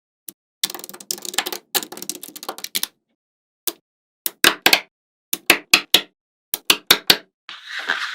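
Small magnetic balls clicking and snapping together as a model is built from them: a rapid clatter of many balls for about two seconds, then sharp single clicks in quick groups of two or three, and a short scraping rustle near the end.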